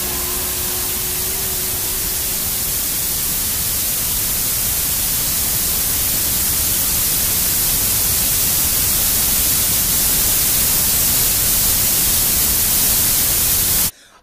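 Wall of static noise closing out a recorded track: a loud, even hiss that slowly grows louder, with a few faint held tones dying away in the first couple of seconds. It cuts off suddenly just before the end.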